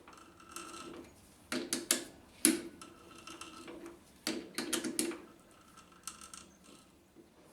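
Tapping an internal thread by hand: the tap and tap wrench clicking and creaking in the metal as they are turned. There are two bursts of sharp clicks, about a second and a half in and again a little past the middle, with short creaking stretches between them.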